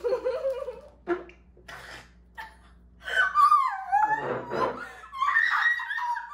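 A young woman's wordless, high-pitched cries and whimpers, with a long falling wail about three seconds in and a higher cry near the end. They are a pained reaction to her mouth burning from a very hot chilli sauce.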